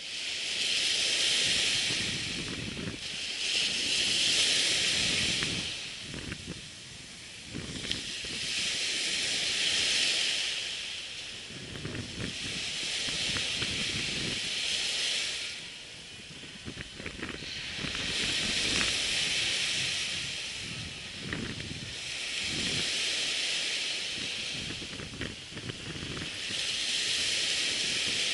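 Surf washing onto the beach, a hissing rush of breaking waves that swells and fades every few seconds.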